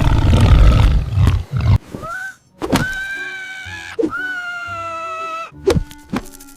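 Vacuum cleaner running loudly, cutting off about a second and a half in. Then a cat gives two long, drawn-out meows over light background music.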